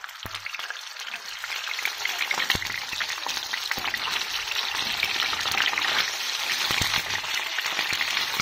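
Whole sea fish frying in hot oil in a pan: a steady sizzle scattered with sharp pops, growing louder over the first few seconds as more fish are laid in.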